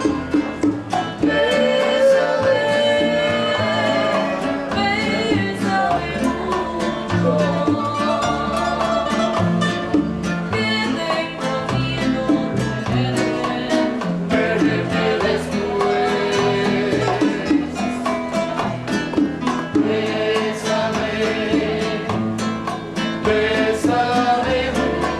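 Live Cuban band music: singing over guitar, bass and percussion with a steady beat.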